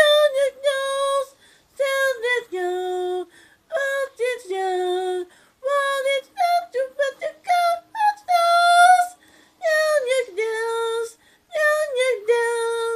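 A high-pitched voice singing a tune in short phrases of held notes, with brief pauses between phrases and no accompaniment.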